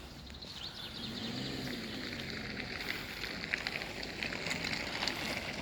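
Outdoor background noise with a dense, irregular crackle throughout and a faint low hum that rises and falls about a second in.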